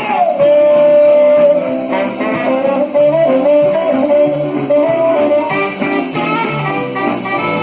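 Live band playing an instrumental break, with a lead guitar carrying the melody. It opens on a long held note, then plays a moving line over bass and rhythm backing.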